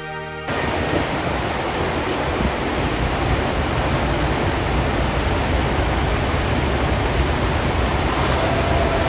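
Background music cuts off about half a second in, giving way to a loud, steady rushing noise that slowly grows louder.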